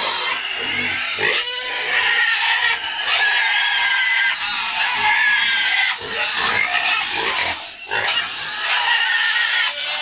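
Several young pigs in a pen squealing and calling, many overlapping high-pitched cries with short gaps about one and a half and eight seconds in.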